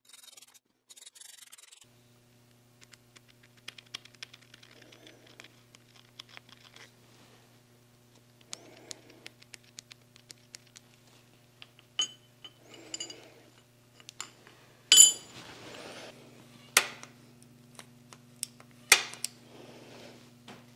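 Hand work on a milling machine's saddle: small steel tools, pins and a ball handle clicking, tapping and clinking against the cast iron, with a few sharper metal clinks, the loudest about 15 seconds in and briefly ringing. A soft rustle of the leather way guard at the start, and a low steady hum underneath from about two seconds in.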